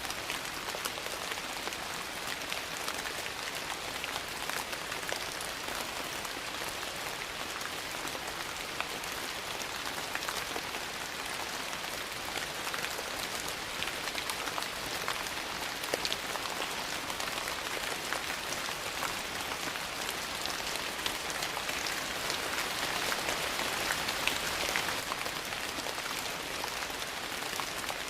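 Steady rain falling on a surface, with many scattered sharp ticks. It swells a little louder about three-quarters of the way through.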